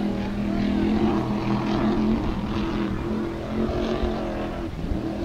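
Offshore racing powerboat's engines running at full speed, a loud, steady drone that holds its pitch and eases slightly toward the end.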